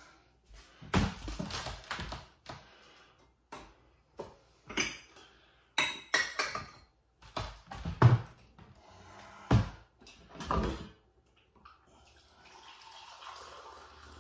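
Cups, glasses and dishes knocking and clinking in a kitchen cupboard as it is opened and rummaged through, a dozen or so separate knocks over several seconds. A faint steady rushing sound follows for the last couple of seconds.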